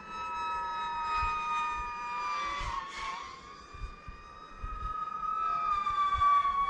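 DJI FPV drone's motors and propellers whining: one high tone with overtones that slides in pitch as the throttle changes, sagging about three seconds in and climbing back. Short low thumps underneath.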